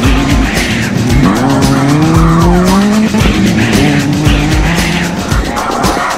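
Off-road race vehicle engine revving, its pitch rising over a second or two, mixed with background music with a steady beat.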